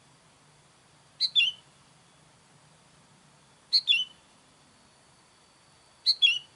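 Sooty-headed bulbul (kutilang) calling: three short calls about two and a half seconds apart, each two quick notes, the second falling in pitch.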